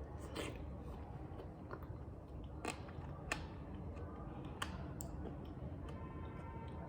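Chewing: scattered soft crunches and sharp clicks over a steady low hum.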